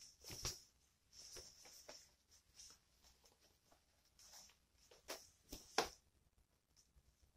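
Faint clicks and handling noise from a Godox V850II speedlite being worked in the hands as its buttons are pressed to change settings, with a few sharper clicks about five to six seconds in.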